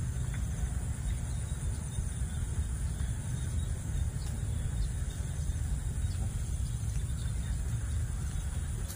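Steady high-pitched trilling of insects, such as crickets, over a steady low rumble of wind on the microphone.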